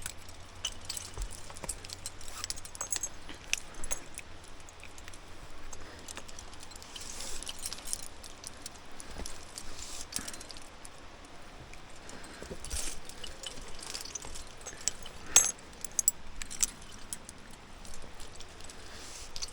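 Metal climbing hardware, carabiners and racked gear on a harness, clinking and jingling in irregular short bursts while a rappel is being rigged, with one sharper metallic clack about fifteen seconds in.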